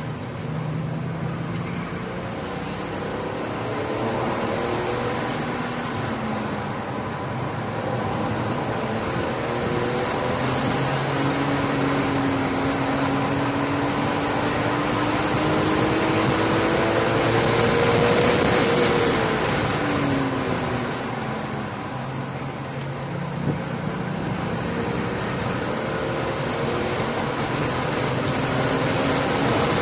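BMW E46 M3's straight-six engine pulling in third gear on track, the pitch climbing steadily as it revs up the straights, dropping quickly about two-thirds through as the throttle comes off for a corner, then climbing again. Wind and tyre noise run underneath, heard from inside the cabin.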